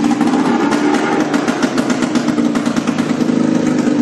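A golf cart's 440 snowmobile engine, a two-stroke, running loudly at a fairly steady speed after being started.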